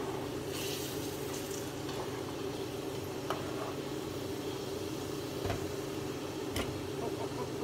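Hot oil sizzling in a frying pan of sweet potato fries, with metal tongs clicking against the pan now and then as the fries are lifted out, over a steady hum. A brief rustle of paper towel comes about a second in.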